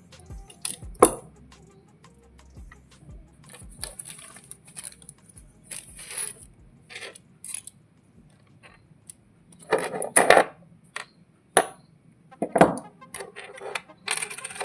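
Small metal parts and tools being handled: irregular clicks and clinks with short scraping and rustling noises, the busiest and loudest about ten seconds in.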